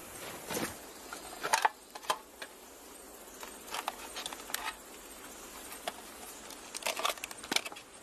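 Scattered small clicks, knocks and rustles of gear being handled: backpacks set down on gravel and a camera trap's plastic case opened and worked by hand.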